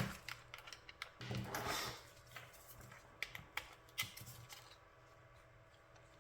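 Light clicks and scrapes of a precision Phillips screwdriver and a small plastic Joy-Con controller shell being handled as its screws are undone, with a longer scrape a little over a second in; it falls quieter after about five seconds.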